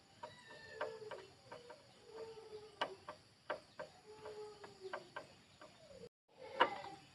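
Short animal calls repeated several times, with sharp clicks and taps in between.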